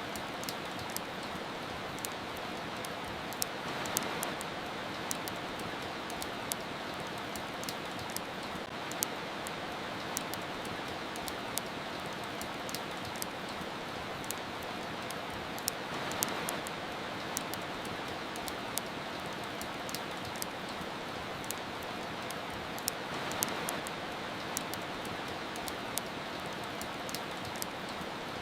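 Steady rain with a wood fire crackling: an even hiss of rain with frequent sharp crackles and pops scattered through it. The rain hiss swells briefly three times.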